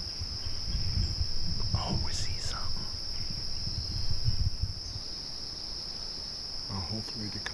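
A steady, high-pitched chorus of insects trilling continuously. Low rumbling noise on the microphone runs under it for the first five seconds or so, then drops away.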